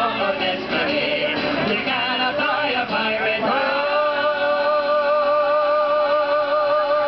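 Pirate sea shanty sung live by male voices with acoustic guitar; about halfway through, a male singer holds one long note with vibrato.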